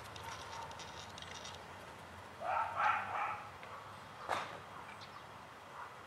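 A dog barking a short run of several barks about two seconds in, followed by a single sharp click a couple of seconds later.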